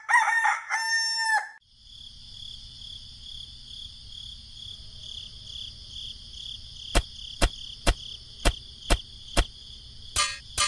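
A rooster crows briefly, then a steady high chirring of insects carries on, with six sharp clicks about half a second apart near the end.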